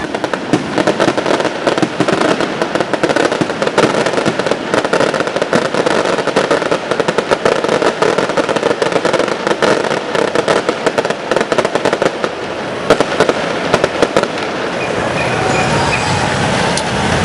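Street firecrackers and aerial fireworks shells going off in a dense, rapid run of cracks and bangs. The barrage thins out about fifteen seconds in.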